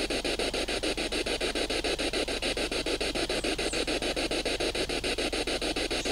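Ghost box (spirit box radio scanner) sweeping through radio stations: a steady hiss of static chopped into rapid, even pulses, about seven a second.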